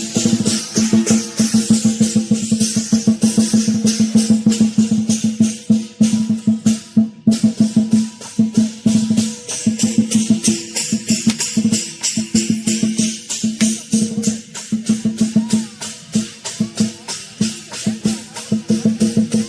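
Lion dance percussion: drum, cymbals and gong played in a fast, steady beat, with the crash of the cymbals and a low ringing tone under the strikes. There is a brief break in the beat about seven seconds in.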